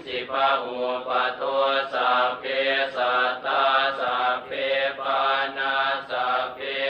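Buddhist chanting in Pali: a voice recites in an even, steady rhythm, about two syllables a second.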